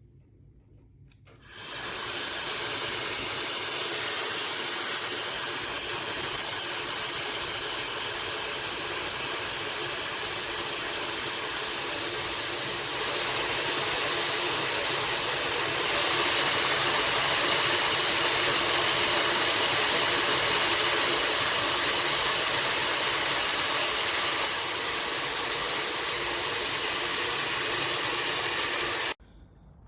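SnugLuv 160,000 RPM high-speed hair dryer switched on, running with a steady rush of air and a thin high whine. It gets louder in two steps around the middle, eases back a little later, then cuts off suddenly shortly before the end.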